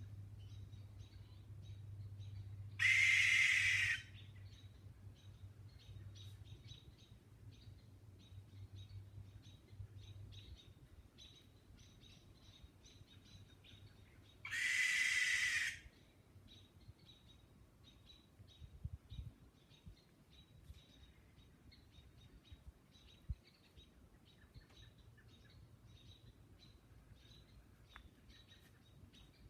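Great horned owl giving harsh, hissing screeches, two of them about a second long and roughly eleven seconds apart, over faint short chirps in the background.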